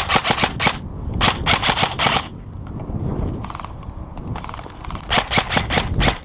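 Airsoft rifles firing in short bursts of rapid shots, one burst right at the start, a longer one about a second in, and several more near the end.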